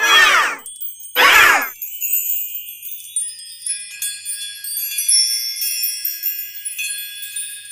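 Cartoon sound effects: two short sounds that fall in pitch, about a second apart, then a long high tinkling shimmer of many bell- and chime-like tones.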